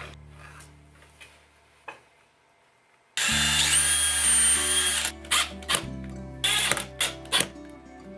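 A small handheld power tool starts a little over three seconds in, its motor whine rising and then holding for about two seconds. Several short bursts of the tool follow. Background music with a steady bass runs underneath.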